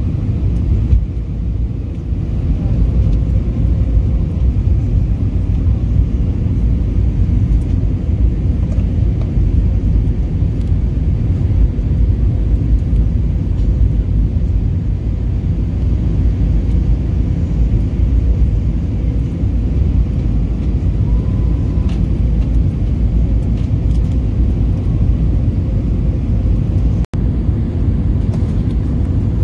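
Steady low rumble inside the cabin of an Airbus A321 airliner descending on approach: engine and airflow noise heard through the fuselage. A momentary gap breaks it near the end.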